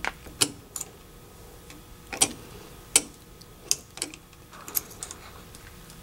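Quarter-inch spade connectors being pulled off a capacitor's terminals with needle-nose pliers: a string of sharp, irregular metallic clicks and snaps, about eight in all.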